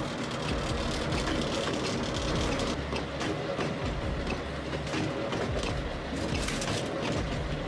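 Firewood processor running steadily, its engine and hydraulics droning under a dense rattle of working machinery, with a few sharp cracks and knocks from the wood being handled.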